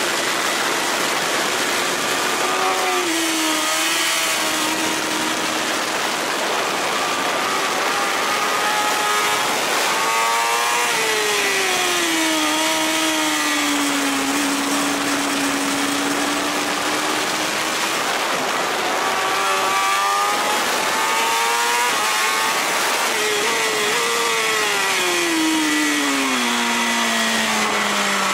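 BMW S1000RR inline-four engine heard onboard at track speed, over a steady rush of wind on the microphone. Its pitch falls in three long sweeps as the bike slows for corners and climbs again between them.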